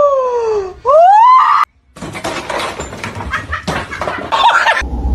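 A cat's long drawn-out yowl, sliding down in pitch and then sweeping sharply up, cut off about a second and a half in. Irregular clattering and rustling noises follow.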